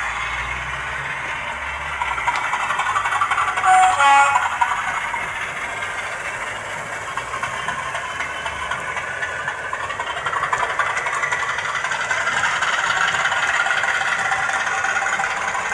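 Recorded Class 50 diesel engine sound played through the small speaker of a model locomotive's TTS sound decoder, running steadily as the train moves, with a brief horn about four seconds in.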